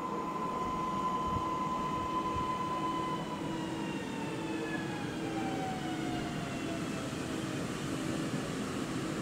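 EN63A electric multiple unit arriving and slowing. A steady whine from its electric traction drive holds for about three seconds, then falls slowly in pitch as the train slows, over a low rolling rumble.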